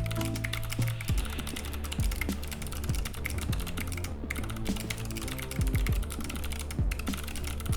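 Fast, continuous typing on a mechanical keyboard during a typing-speed test, with two brief breaks in the keystrokes.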